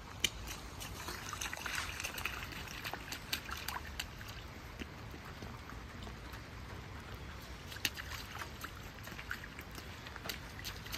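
Small splashes and patters of water as toddlers' hands and feet play in a shallow rain puddle, scattered and irregular, over a steady low rumble.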